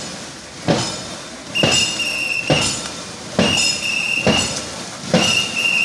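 Crew of a Kerala snake boat keeping the paddling rhythm: sharp strikes about once a second, with a shrill whistle held for about a second on every other beat. It is the stroke being timed as the boat races.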